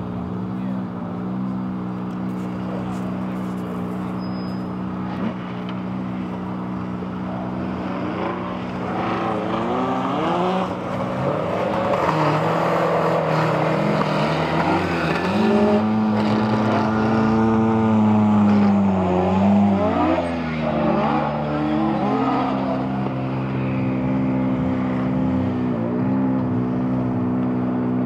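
Mk1 Ford Escort rally car's two-litre engine being driven hard, its note rising and falling again and again through gear changes and corners. It grows louder from about eight seconds in as the car approaches, and settles to a steadier note near the end.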